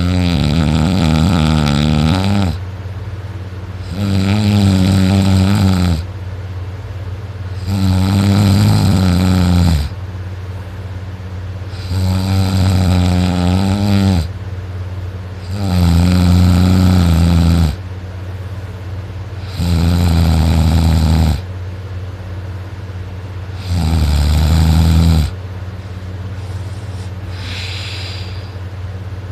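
A sleeping person snoring loudly: seven long, pitched snores of about two seconds each, roughly one every four seconds, over a steady low hum. The snoring stops a few seconds before the end.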